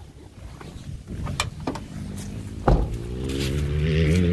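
Van door being opened and clicked, then slammed shut with a thud about two and a half seconds in. After that a low droning hum, wavering slightly in pitch, grows louder near the end.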